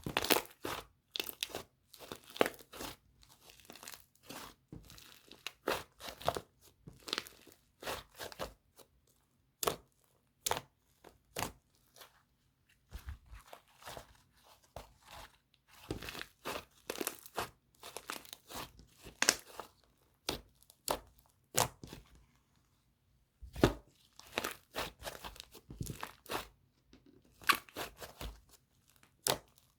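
Slime being squeezed and stretched by hand, giving off irregular crackling, crinkling pops in quick clusters with short pauses between them: the soft 'sharr' crackle that is unusual for this liquid-type slime.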